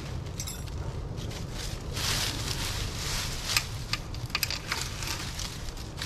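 Dry fallen leaves crackling and crunching under a kneeling person's knees and hands as they shift and handle a drain cable, with a few sharp clicks in the middle.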